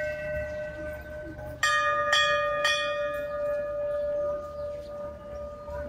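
A puja bell rung during the worship: an earlier stroke is still ringing and fading, then about one and a half seconds in three strikes come about half a second apart and ring on, slowly dying away.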